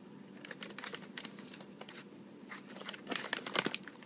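A cat crunching dry treats: a run of sharp crunching clicks, sparse at first, then quicker and louder over the last second and a half.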